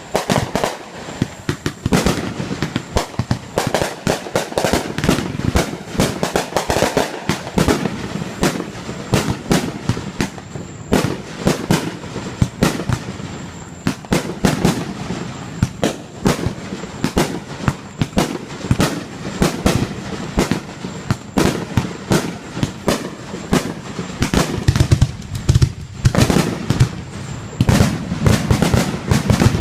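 Aerial fireworks display going off in a dense, unbroken run of bangs and crackles, several reports a second.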